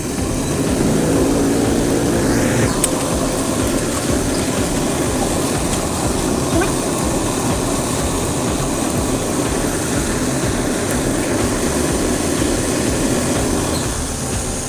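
Cotton candy machine running, its spinning head giving a steady whirring rush while floss is wound onto a stick; the sound eases off slightly near the end.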